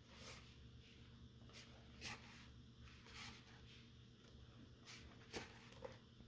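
Glossy pages of a large art book being turned by hand: a few brief, faint paper swishes and rustles over a quiet room hum.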